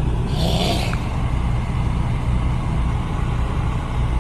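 Car engine running steadily, heard from inside the cabin, with a brief hiss about half a second in.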